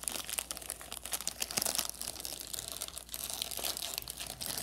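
Plastic wrapper of an ice cream bar crinkling as it is handled and pulled open, a dense run of small crackles.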